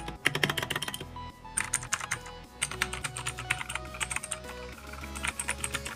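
Rapid typing on a Thunderobot KG3104 mechanical keyboard fitted with a mix of blue and red switches: quick runs of key clicks with brief pauses, as a sound test of the switches. Background music plays underneath.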